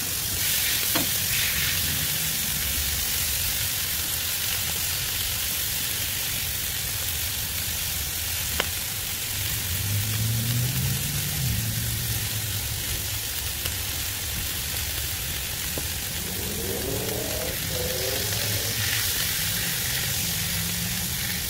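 Ground-chuck burger patties and their grease sizzling steadily on the hot steel of a Blackstone 22-inch flat-top griddle. A single sharp tick comes about eight and a half seconds in.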